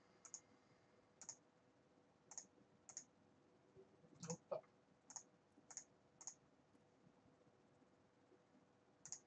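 Faint computer mouse clicks, about nine at irregular intervals, over a faint steady hum.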